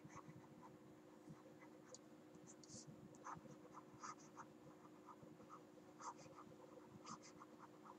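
Faint, irregular taps and scratches of a stylus writing on a tablet, over a faint steady hum.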